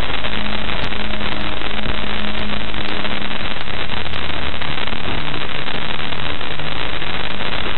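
Audio rendering of Parker Solar Probe's recording of small dust particles striking the spacecraft: a loud, dense, steady hiss like an old TV's static, with a faint low hum underneath.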